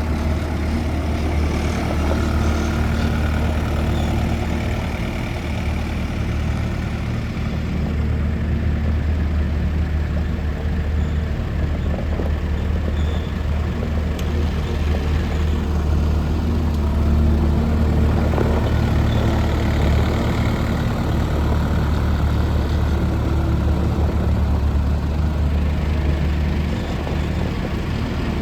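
Case SV300 skid steer loader's diesel engine running steadily, a little louder for a few seconds past the middle.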